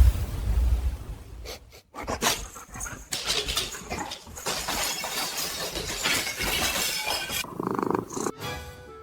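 A dog growling, with clattering and crashing noises around it.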